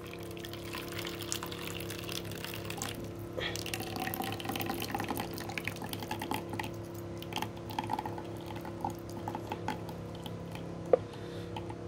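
Hot water being poured off an instant noodle bowl, trickling and dripping unevenly: the noodles are being drained after soaking. A steady faint hum runs underneath, and a single sharp click comes near the end.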